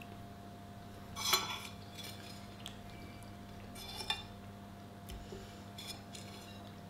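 A metal spoon clinking against a soup bowl as it scoops. The loudest clink comes about a second in and another about four seconds in, with a few lighter taps between. A faint steady hum runs underneath.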